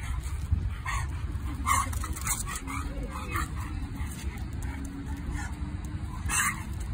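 Two dogs play-fighting on leashes, giving about half a dozen short vocal sounds, the loudest near the end, over a steady low rumble.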